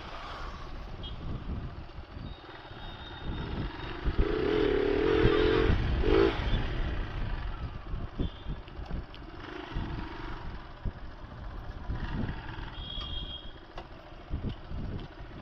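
Motorcycle engine running while riding, then easing off as the bike slows to a stop. A louder wavering tone rises over it from about four to six seconds in.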